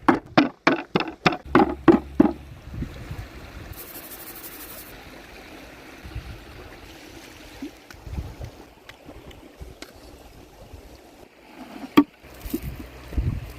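A quick run of sharp knocks, about four a second, for the first two seconds, then a steady trickling of running water, like a small stream. A single sharp click comes near the end, followed by a few soft thumps.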